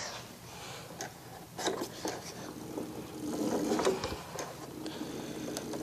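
Razor Crazy Cart's electric drive motor whirring as the cart moves, with a few clicks and knocks in the first two seconds.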